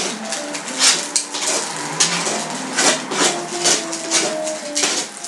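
Cooking utensils scraping and clattering on a pan in a quick run of short strokes, with faint steady tones underneath.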